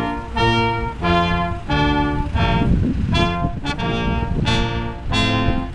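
Navy brass band playing a slow tune in held, sustained notes, with a low rumble underneath.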